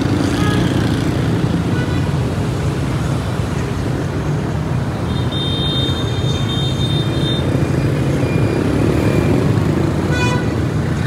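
Steady city street traffic: motorbikes and cars running past with a continuous engine and tyre drone. A thin, high-pitched whine sits over it for about two seconds midway.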